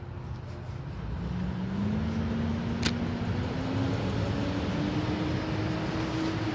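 A motor vehicle's engine running over a low rumble, its pitch rising slowly as it speeds up. One sharp click about three seconds in.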